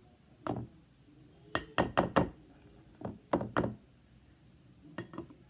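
A run of sharp knocks and clinks of hard objects striking one another, in quick groups: one, then a cluster of four, then three, then two.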